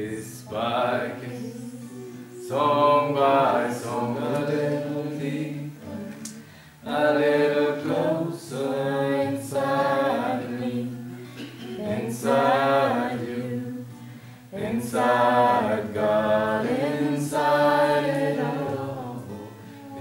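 A man singing a slow song in long phrases to his own acoustic guitar strumming, with a group of voices singing along.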